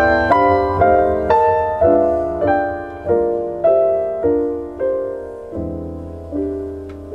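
Solo piano introduction of a ballad played back over Bowers & Wilkins 805 D2 bookshelf loudspeakers. Slow chords are struck about every half second, each one ringing and fading, and the playing softens toward the end.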